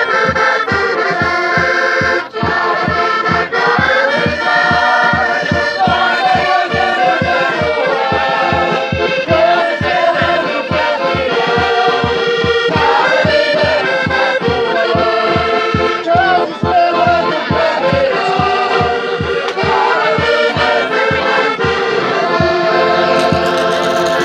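Portuguese folk ensemble performing a song: accordion playing with a mixed group of men and women singing together over a steady bass-drum beat.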